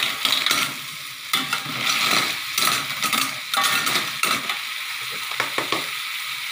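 Blood cockles sizzling in a hot metal wok as a metal ladle stirs them. Shells and ladle scrape and clatter against the pan in several short bursts.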